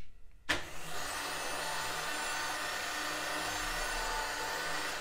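Homematic Keymatic motorised door lock driving the lock cylinder round to lock the door on a command from its key fob: a click about half a second in, then the motor whirs steadily.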